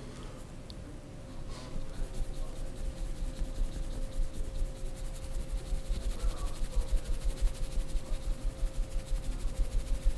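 Fast, regular massage percussion, several strokes a second, beginning about two seconds in, over a faint steady hum.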